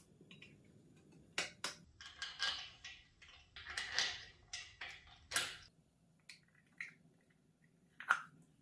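Steel clamp fixture being fitted onto the square steel tube of a motorcycle chassis jig: two sharp metal clicks about a second and a half in, a rattling scrape of metal sliding and knocking on metal through the middle, and one louder sharp knock near the end.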